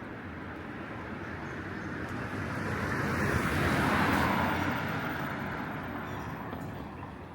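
A vehicle passing close by: its noise swells to a peak about four seconds in, then fades away as it moves off.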